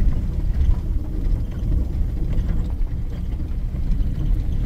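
Steady low rumble of a vehicle driving slowly on a dirt road, heard from inside the cab: engine and tyres on the rough track, with a few faint knocks.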